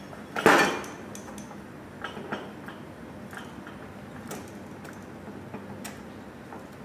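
Small metal bike parts and tools being handled during disassembly: one loud metallic clatter about half a second in, then a few scattered light clinks and clicks.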